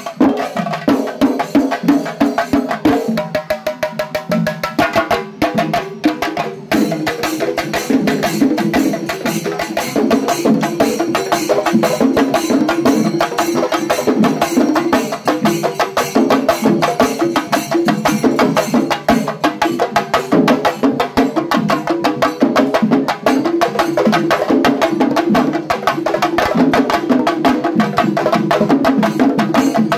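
Shinkarimelam ensemble of chenda drums beaten with sticks, playing a fast, dense, driving rhythm. A short held pitched tone sounds over the drums about three seconds in, and the drumming breaks off for a moment near seven seconds before carrying on.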